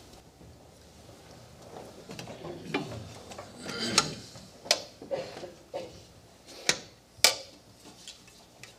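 Handling noise of objects being picked up and set down: scattered clicks and knocks, with half a dozen sharp ones in the second half.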